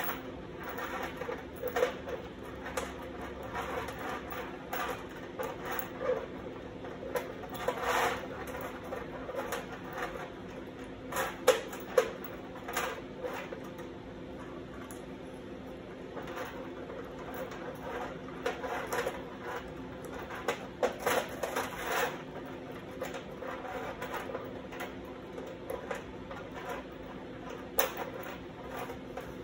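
Steel chain links clinking and sliding on a bare sheet-metal tabletop as the chain is moved and set into shape by hand: irregular light clicks and taps, two sharper clanks about halfway through, over a steady low hum.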